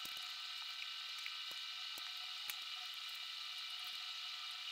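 Faint steady hiss with a thin high whine of several steady tones, from a laptop running as it boots, with a few faint ticks.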